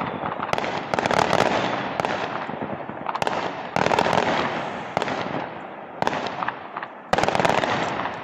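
Aerial fireworks bursting overhead one after another, each bang followed by a dense crackling that fades over a second or two; the loudest burst comes near the end.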